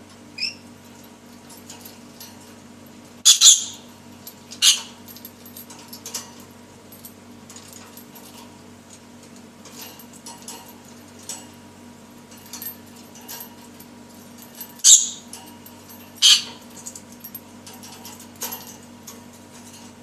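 Rainbow lorikeet giving short, harsh screeches: a loud pair about three and a half seconds in and another pair about fifteen seconds in, with softer squawks and a brief chirp in between.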